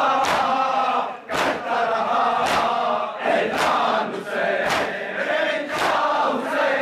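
Crowd of men chanting in unison while beating their chests in matam, with a sharp chest strike about once a second in time with the chant.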